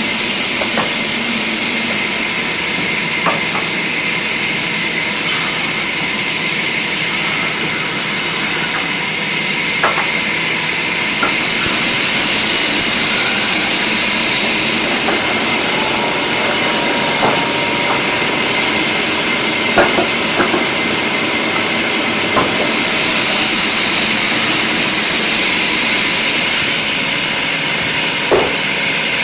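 Woodworking power machinery running steadily with a high whine and hiss, with a few sharp clicks and knocks now and then.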